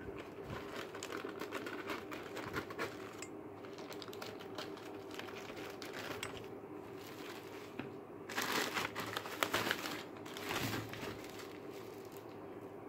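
Plastic courier mailer and bubble wrap crinkling and rustling as the parcel is cut open with scissors and the bubble-wrapped package is pulled out. The rustling is louder from about eight to eleven seconds in.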